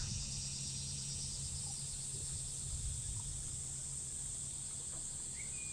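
Cicadas in summer heat: a steady, high-pitched insect chorus with a fine pulsing texture. Beneath it is a faint, steady low hum, and a short rising chirp is heard near the end.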